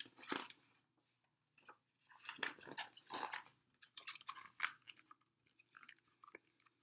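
A paperback picture book being handled and opened: its pages and cover rustle and crinkle in irregular bursts, tailing off into a few small clicks near the end.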